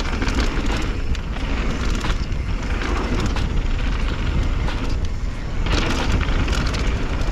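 Mountain bike descending a dry, dusty dirt trail at speed, heard from a chest-mounted camera: a steady rumble of wind and tyres on the loose dirt, with the bike clattering and rattling over the bumps.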